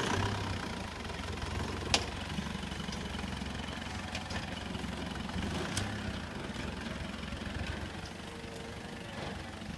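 A vehicle's engine running low and steady as it drives off, fading out about eight seconds in. There is a sharp click about two seconds in and another near six seconds.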